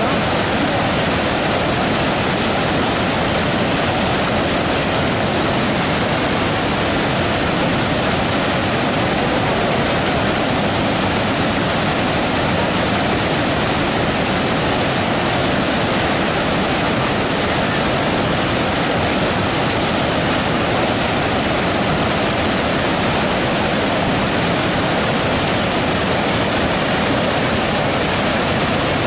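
Waterfall on the Mogi-Guaçu River: loud, steady rushing of falling water that does not change.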